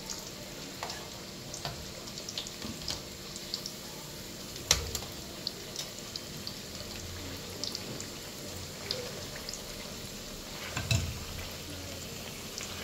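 Small flour-and-jaggery patties frying in hot ghee in a pan: a steady sizzle with scattered pops and crackles. A sharp knock comes about halfway, and another louder knock near the end.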